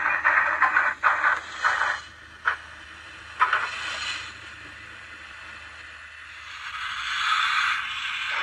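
Steam-locomotive sound from the DCC sound decoder in a Hornby Smokey Joe OO gauge model. A quick run of exhaust chuffs in the first two seconds is followed by two single puffs about a second apart, then a steady hiss of steam that swells louder near the end.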